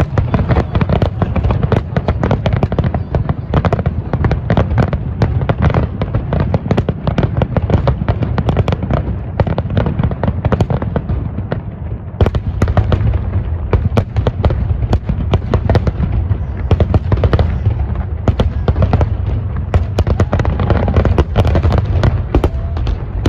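Aerial fireworks bursting in a dense, continuous barrage: many sharp cracks and bangs a second over a deep, steady booming.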